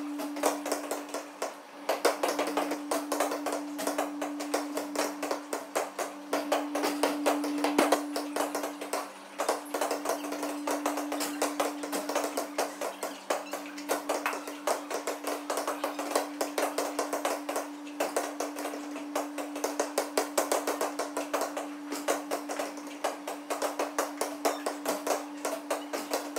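A dense, unbroken run of sharp taps and knocks, several a second, over a steady low hum.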